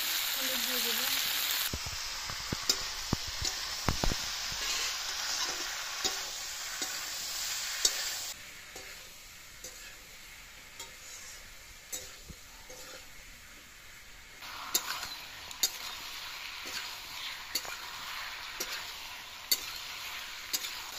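Capsicum, tomato and green chillies frying in oil in a metal kadai, sizzling steadily, while a metal spatula stirs them with frequent sharp clicks and a few heavier knocks against the pan. The sizzle drops lower about eight seconds in and rises again near fifteen seconds.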